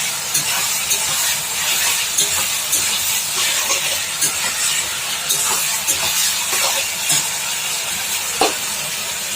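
Onion, sauce and green chilli mixture sizzling steadily in a frying pan while being stirred, with a spatula clicking and scraping against the pan now and then. This is the frying-down stage of the masala.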